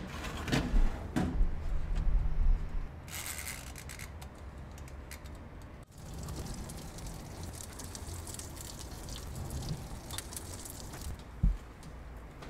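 Metal baking tray clattering and knocking as it is slid onto a toaster oven's rack. This is followed by a steady low noise with faint crackling, and a single dull thump near the end.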